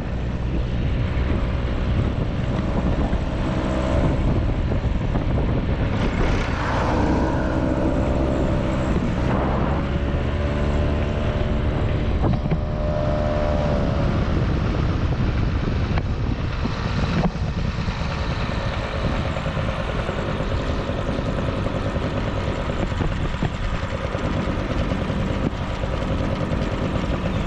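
Small motorcycle engine running while riding at road speed, its note rising and falling a few times in the first half, with wind rushing over the microphone.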